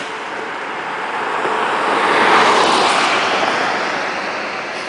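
A vehicle passing by: tyre and road noise swells to a peak about halfway through, then fades away.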